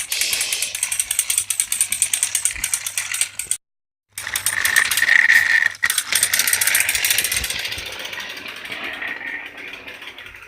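Battery-powered Plarail Theo toy train running, its small gearbox whirring with fast, rattling clicks. The sound cuts out for half a second a little past a third of the way in, then resumes with a higher whine before fading near the end.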